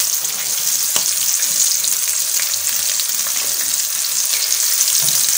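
Flour-dusted shrimp deep-frying in hot oil in a pan: a steady sizzle with fine crackling, and one sharper pop about a second in.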